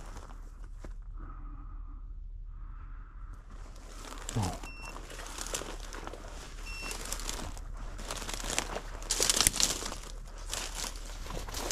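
Footsteps and dry brush crunching and crackling against legs and clothing as a person pushes through stiff, dead shrub cover. There is a short lull early on, and the crackling is loudest and thickest about nine seconds in. A brief falling tone is heard about four and a half seconds in.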